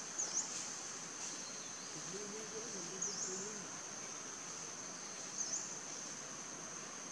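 Steady high-pitched insect drone in forest, with short high chirps about every two to three seconds. A faint, low wavering call comes in briefly around the middle.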